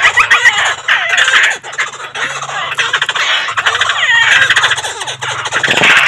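Caged laughingthrushes chattering and calling together: a dense, loud stream of harsh calls mixed with quick rising and falling notes.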